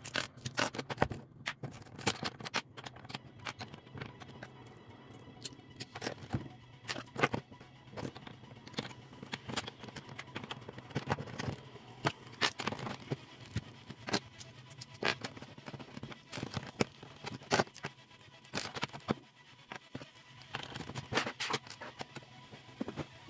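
Plastic Lego bricks and plates clicking and clattering as they are handled, set down and pressed together. The sharp clicks come at an irregular pace over a steady low hum.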